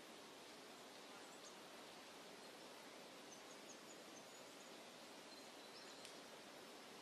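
Near silence: faint outdoor ambience with a steady hiss and a few faint, short high chirps, a quick run of them a few seconds in and another near the end.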